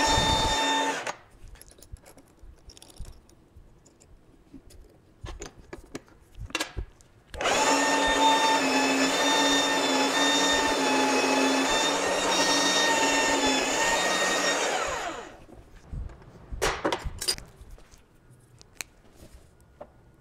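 Mag drill motor running with a steady whine and stopping about a second in, followed by a few seconds of small clicks and taps. It then starts again and runs for about seven seconds while a twist bit drills a hole into steel plate, and its pitch falls as it winds down. A few light metallic knocks and clicks follow near the end.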